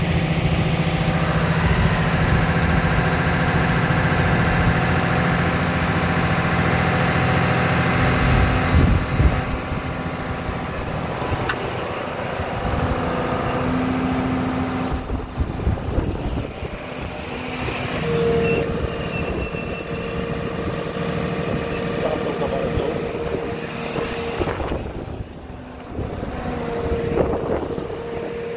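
Hutte HBR 203 D crawler drill rig running on its power pack: a steady engine-and-hydraulics hum that shifts in pitch and level as the controls are worked. About halfway through a steady higher whine sets in, breaking off briefly near the end.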